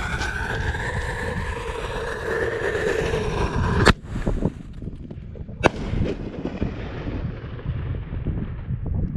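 Consumer firework artillery shell (Snake Bite Super Bullet) fired from a mortar tube close to the microphone. The fuse burns with a steady hiss and whistle for about four seconds, then the lift charge goes off with a sharp bang. A second crack follows under two seconds later, as the shell breaks overhead, and then a crackling rumble.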